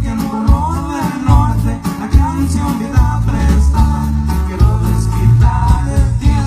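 A live band plays an upbeat song with electric guitars, a heavy bass line and regular drum hits, and a wavering melody line runs over them.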